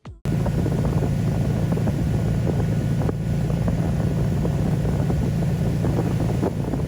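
An engine running at a steady drone, with wind noise on the microphone, starting abruptly just after the beginning.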